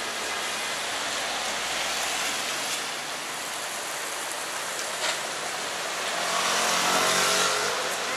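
Street traffic on wet asphalt: a steady hiss of tyres on the wet road with engines, swelling louder about six seconds in as a vehicle passes close, and a brief click about five seconds in.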